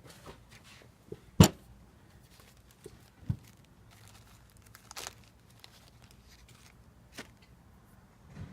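Scattered sharp knocks and clicks of small objects being handled in a small room, the loudest about a second and a half in, with a few fainter ones spread through the rest.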